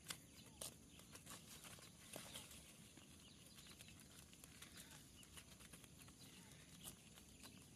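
Near silence, with a few faint, scattered taps from fish being handled and shifting on a plastic sheet.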